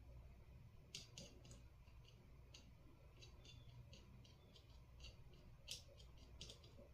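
Faint, scattered light clicks and ticks of small tools and kit parts being handled during soldering, over a low steady hum.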